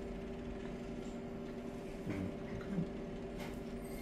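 Steady low hum of room equipment holding a few even tones, with a couple of faint murmurs and a soft click.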